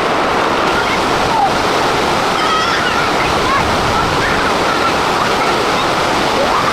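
Steady, loud rushing water, an even unbroken noise with no splashes or rhythm.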